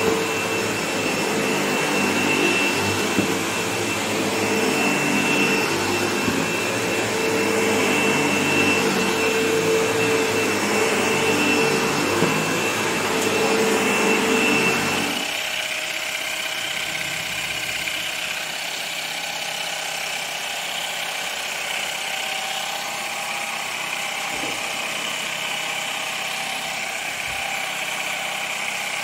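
An upright vacuum cleaner's motor runs steadily with a whine as it goes over carpet. About halfway through it gives way abruptly to a thinner, higher steady whir from the carpet pre-spray sprayer.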